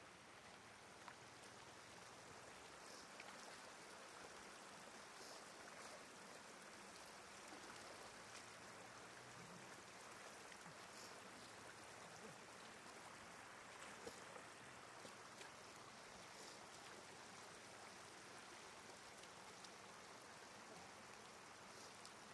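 Faint, steady trickle of shallow floodwater, with a few small splashes from fish thrashing and hands grabbing at them in the water.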